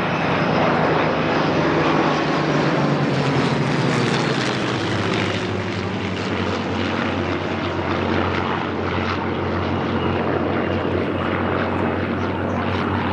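Piston-engined WWII propeller aircraft flying past, its engine note dropping in pitch about five seconds in as it goes by.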